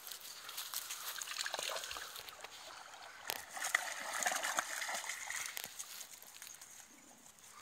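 Water sloshing and splashing as Patterdale terriers swim through a lake and climb out onto the bank, loudest about halfway through, with a few sharp clicks.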